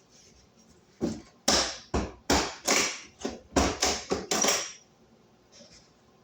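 A quick run of about eight sharp knocks, each fading within a fraction of a second, over about four seconds.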